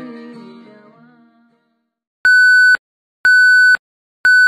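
Outro music fading out over the first second and a half, then, after a short silence, a loud steady electronic beep tone repeating about once a second: three half-second beeps.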